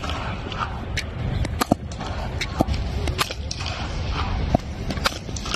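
Sharp knocks of cricket bats striking the ball in the practice nets, several in quick succession over a steady low rumble.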